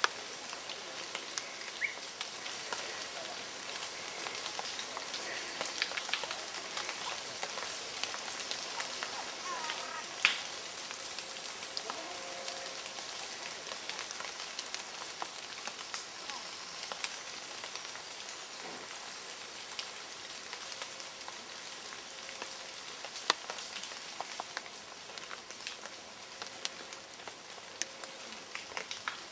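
Steady outdoor hiss in woodland, peppered with scattered ticks and crackles, with a sharp snap about ten seconds in and another a little after twenty seconds.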